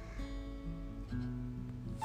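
Background music: a melody of plucked acoustic guitar notes.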